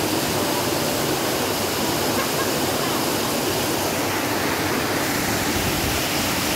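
Waterfall running steadily with a strong flow: a dense, unbroken rush of falling water.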